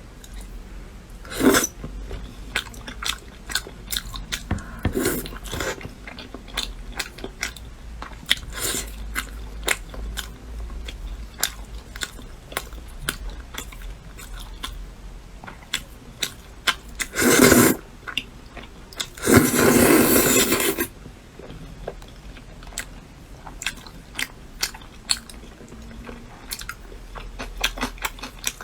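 Close-miked eating: repeated bites and chewing with crisp crunching clicks. Two louder, longer noisy sounds come about two-thirds of the way through.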